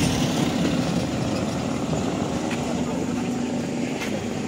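Yamaha RX-King two-stroke motorcycle engines running in the background, a steady rough drone with a few faint ticks.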